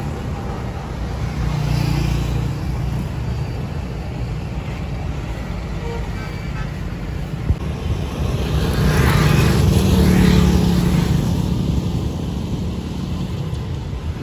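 Street traffic, a steady low rumble of cars and motorbikes. One vehicle passes close about nine seconds in, growing louder for a couple of seconds and then fading.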